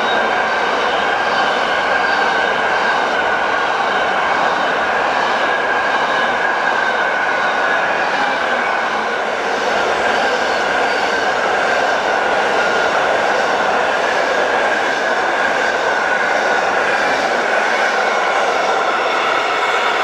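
Freight train rolling past steadily: the rush of wagon wheels on the rails, with a high ringing tone that sinks slightly.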